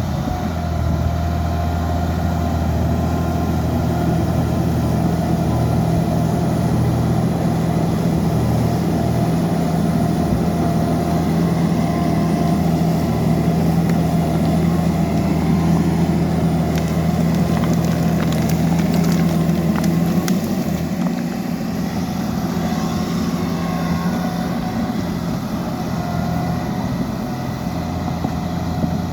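Diesel engine of a Liebherr PR 754 crawler dozer running steadily, easing off somewhat about two-thirds of the way in.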